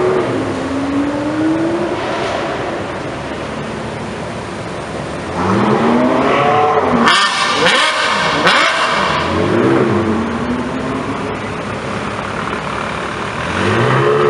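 Ferrari sports car engines revving and pulling away one after another, the pitch rising and falling in repeated revs. The loudest revving comes about halfway through, with three sharp cracks, and another car revs near the end.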